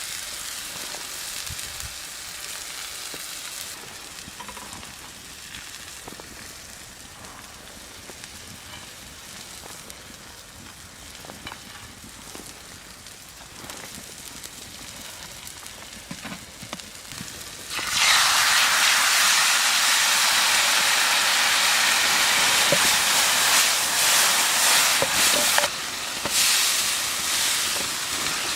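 Meat frying in hot fat: a soft sizzle with a few clicks, jumping suddenly about two-thirds of the way through to a loud, steady sizzle.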